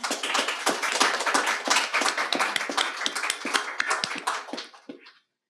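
Audience applauding: many hands clapping densely, thinning out and stopping near the end.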